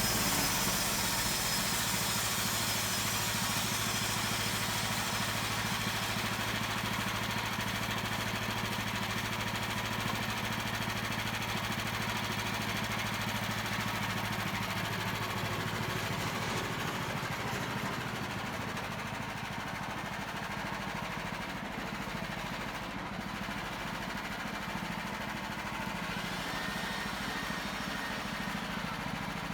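Engine of a portable bandsaw mill running steadily while the blade cuts a log, with a high hiss over the engine hum that eases off about halfway through.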